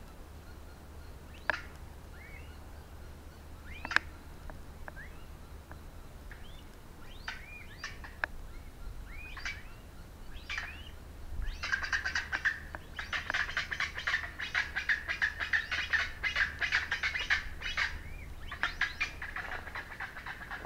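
A flock of chachalacas calling: a few scattered calls at first, then about halfway through a loud, raucous chorus of many birds calling over one another.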